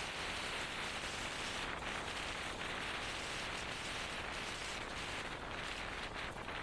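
Strong wind rushing across an exposed mountain ridge, a steady hiss on the microphone.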